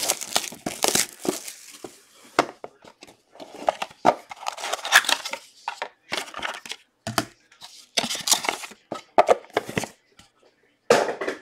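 Plastic shrink wrap on a trading card box being picked at, torn and crumpled in irregular bursts of crinkling, with short pauses between.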